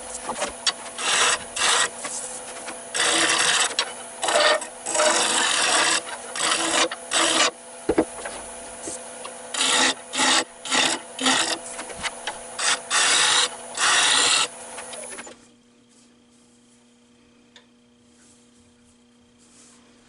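Turning tool cutting an olive-wood blank spinning on a wood lathe, shaping the outside of a hollow form: repeated scraping bursts of a second or so over the lathe's steady hum. The cutting stops about fifteen seconds in, leaving only a faint hum.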